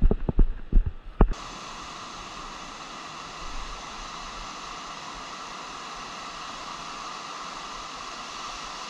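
A few sharp knocks in the first second or so, then an abrupt switch to a flat, steady hiss that holds at one level to the end.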